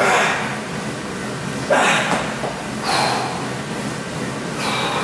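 A man breathing hard, with four forceful breaths about a second or so apart during a set of triceps repetitions, over a steady background hum.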